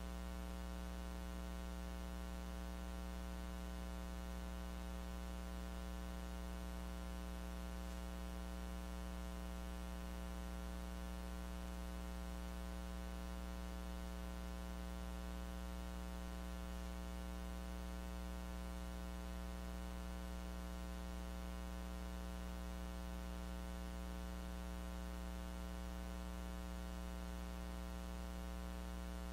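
Steady electrical mains hum and buzz, a low drone with a stack of evenly spaced overtones over a faint hiss, never changing: the audio of a recording that captured no sound.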